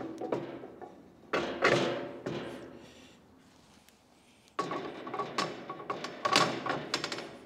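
Steel blade holder of a Marunaka GT-Slider super surfacer being fitted back into the machine: metal knocks about a second and a half in, then metal sliding and scraping against metal with light clinks from about four and a half seconds on.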